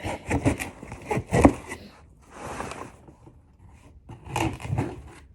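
A kitchen knife cutting open a cardboard box: a run of knocks and scrapes against the cardboard, then a longer rasp of the blade through the packing about two seconds in, then more knocks.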